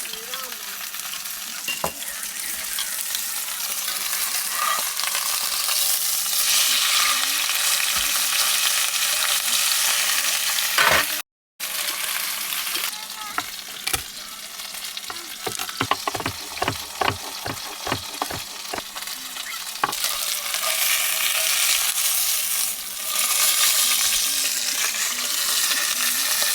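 Chicken frying in a cast iron pan, a steady hissing sizzle. In the middle stretch a utensil knocks and scrapes against the pan several times as the pieces are turned.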